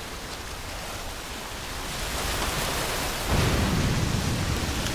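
Ocean surf breaking against rocks: a steady rushing wash that swells louder about three seconds in.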